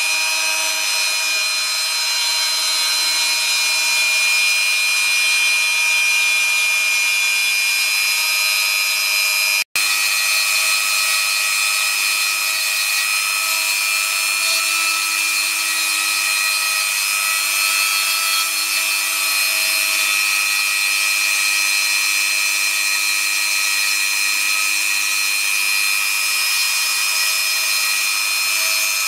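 Rotary tool mounted as the spindle of a mostly printed CNC router, running at high speed with a steady whine as its bit mills green foam board. The sound cuts out for an instant about ten seconds in.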